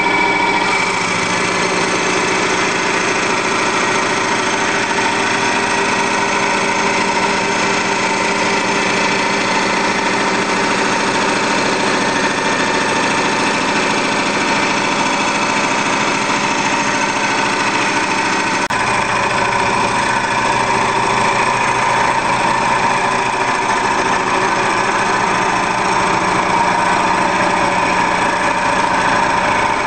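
A Harbor Freight 10x18 wood lathe converted for metal, driven by a stretch rubber belt, running steadily at speed with a constant whine. There is one short click about 19 seconds in.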